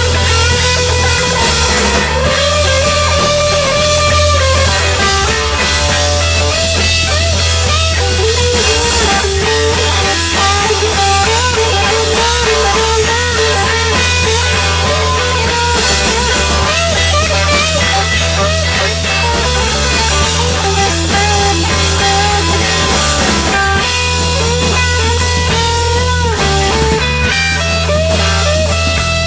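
Rock band playing live: a guitar lead with bending, wavering notes over a steady, heavy bass line.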